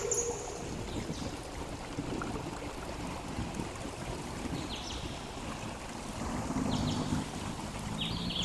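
Steady outdoor rushing noise, like wind or moving water, with a few short high chirps about halfway through and near the end.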